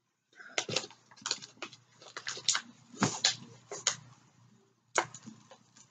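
Protective cover paper crackling and crinkling as it is pulled off the sticky adhesive surface of a diamond painting canvas, in short irregular crackles with brief pauses.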